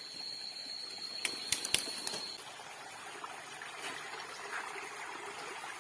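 Stream water running steadily. A quick cluster of sharp clicks comes about a second and a half in, and a thin high steady tone stops a little after two seconds.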